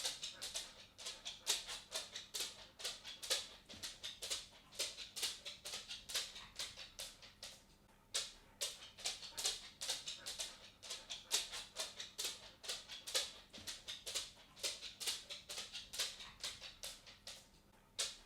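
A cat walking: quick light taps of its paws, several a second, with a brief pause about eight seconds in.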